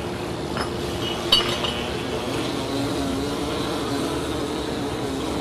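Steady engine-like drone: a noisy rush with a low hum that drops slightly in pitch about two seconds in. A single sharp clink about a second in.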